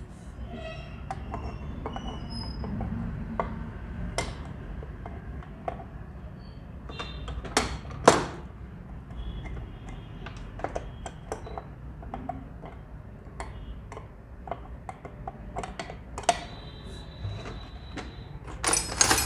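Scattered light clicks and knocks of metal sewing machine parts being handled and fitted into a cast-iron sewing machine head, with a sharper knock about eight seconds in, over a low steady hum.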